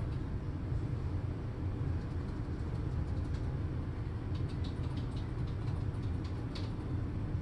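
Steady low rumbling background noise with faint scattered clicks, mostly in the second half.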